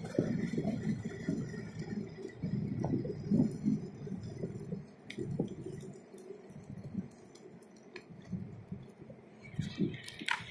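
Rattling rumble of small wheels rolling over fresh asphalt, with irregular light knocks and clinks. It eases off and grows quieter after the middle, then picks up again near the end.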